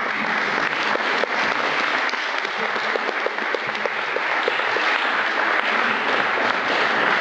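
Audience applauding: steady, dense clapping that cuts in abruptly.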